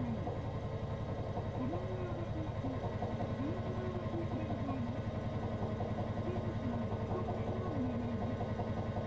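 Interior of a stopped streetcar with its onboard machinery running: a steady low drone with a fast pulsing beat. Faint tones that rise and fall sit behind it every second or two.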